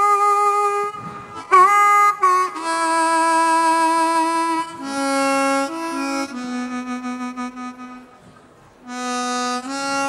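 Blues harmonica played into a microphone: long held notes, several of them bent up into pitch, with short breaks about a second in and again near the end.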